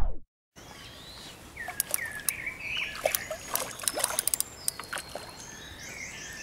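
Pondside outdoor sound: birds calling in short chirping glides, with scattered sharp clicks and light water splashes where a hooked fish stirs the surface at the rod tip.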